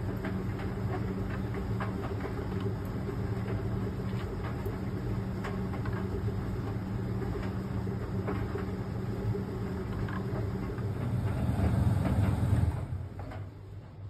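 Fisher & Paykel ED55NZ clothes dryer running: a steady motor hum with the drum tumbling the load and scattered light clicks. It grows a little louder about eleven seconds in, then drops away sharply near the end.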